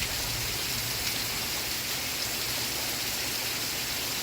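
Steady rain, an even hiss of falling drops with no let-up.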